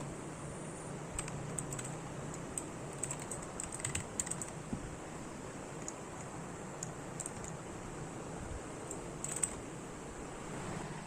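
Keystrokes on an HP GK320 mechanical keyboard with blue clicky switches: irregular sharp clicks, busiest in the first few seconds, sparse after that, with one sharper click near the end.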